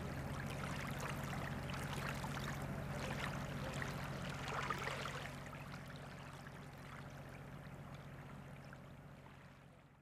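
Water lapping and trickling over a steady low hum, fading out over the second half.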